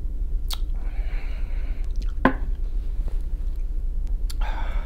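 Close-miked mouth sounds after a swallow from a drinking glass: a lip smack and a breathy exhale, then a single sharp knock about two seconds in as the glass is set down on the table. A steady low hum runs underneath.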